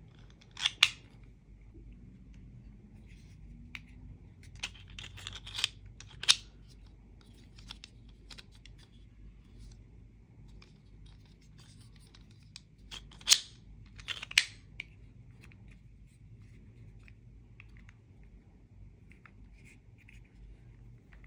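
3D-printed plastic gravity knife fidget toy being flicked, its printed blade sliding and snapping in and out of the handle with sharp plastic clicks. The clicks come in three short groups, a few at a time, with pauses between.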